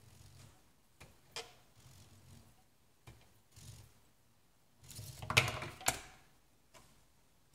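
Tiny geared motor of a 1:87 scale micro RC crawler truck whirring in short bursts as it drives over wood, with light clicks, then a louder scraping clatter about five seconds in.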